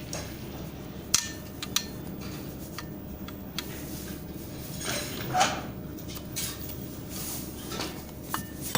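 Metal tools clinking and tapping against metal parts: a few sharp clinks and one longer scraping clatter over a steady low hum.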